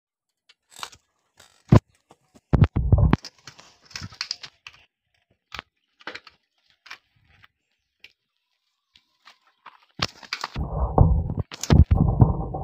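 Scattered clicks and knocks with quiet gaps, then from about ten seconds in a dense, bumpy rumble: handling and movement noise from a handheld phone being carried quickly along a dirt trail.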